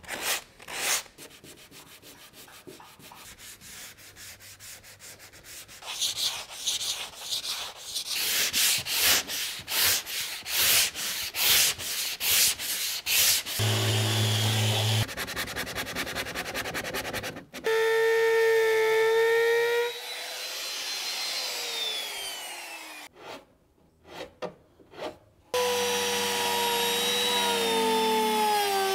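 Hand sanding of a fibreglass deck: a sanding pad rubbed back and forth in rhythmic scraping strokes. In the second half, power sanders take over: an electric random-orbit sander runs with a steady whine and winds down with a falling whine. Near the end, a small rotary sanding disc whines steadily as it grinds the edge of a hole in the fibreglass.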